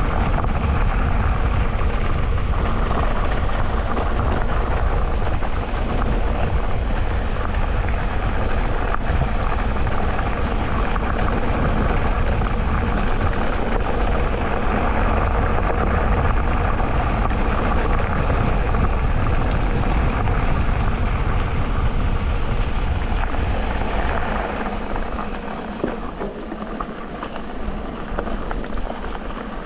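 Ride noise from an electric mountain bike on a dirt trail, picked up by a GoPro: a steady, loud rumble of tyres and frame vibration that eases about 25 seconds in, when the deep rumble drops away.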